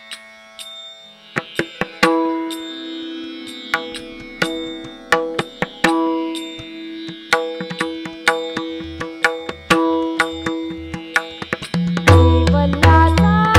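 Instrumental interlude of a Marathi devotional abhang: a melodic instrument holds sustained notes while the pakhawaj (barrel drum) plays crisp strokes. About twelve seconds in, heavy deep pakhawaj bass strokes come in and the singing starts again.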